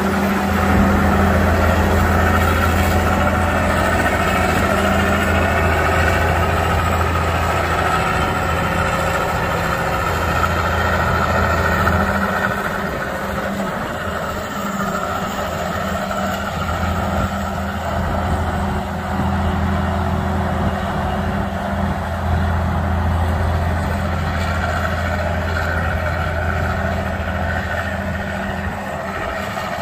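John Deere 9650STS combine's diesel engine running steadily as the machine drives away, a deep hum with a higher whine over it. It grows gradually fainter as the combine moves off.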